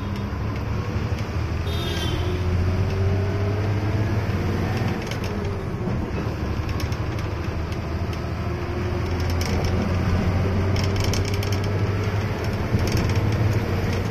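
Diesel engine of an Ashok Leyland 12-wheeler truck heard from inside the cab while driving: a steady low drone whose pitch drifts up and down a little, with light rattling clicks from the cab in the second half.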